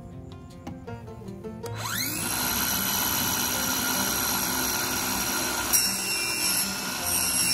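Cordless circular saw spinning up with a rising whine about two seconds in, then running steadily as it cuts through plywood.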